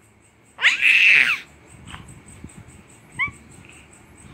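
Baby's high-pitched squeal, one loud call about a second long that rises and falls in pitch, then a short little squeak a couple of seconds later.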